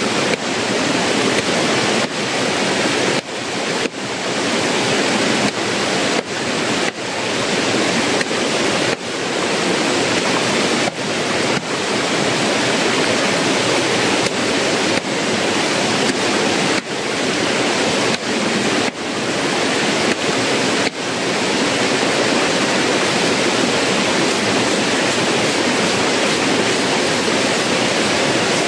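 Loud, steady rush of a mountain stream pouring over rocks in a small cascade. It is cut by many brief dips in the first two-thirds, then runs unbroken.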